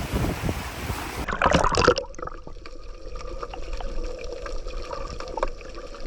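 Sea surf with wind buffeting the microphone. About two seconds in it gives way to sea water trickling and gurgling, with many small clicks and splashes.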